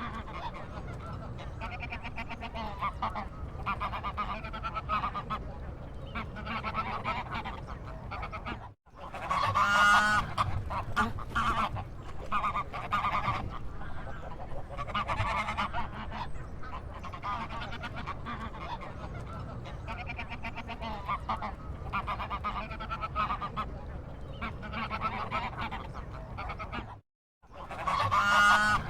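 Waterfowl calling over and over, with the loudest run of calls about ten seconds in and again near the end, over a steady low background rumble. The sound cuts out briefly twice.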